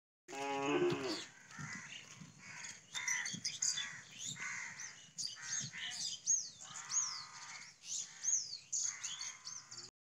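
Crows cawing again and again, the loudest call near the start, with small birds chirping in quick falling notes.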